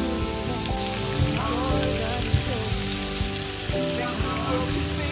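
Chicken livers frying in a pan, a steady dense sizzling, with background music underneath.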